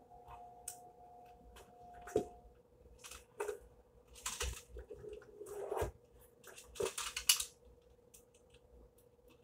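Model railroad track switches with plastic roadbed and the loose plastic packaging being handled: scattered crinkles and rustles with light plastic clicks and rattles as the pieces are lifted and turned over.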